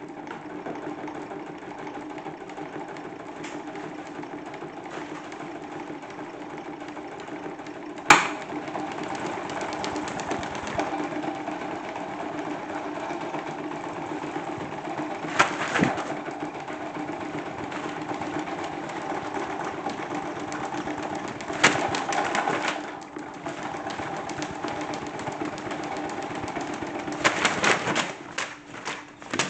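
A salad spinner made into a toy washing machine runs with a steady mechanical whir. Sharp knocks come now and then, the loudest about eight seconds in, with a clatter of several near the end.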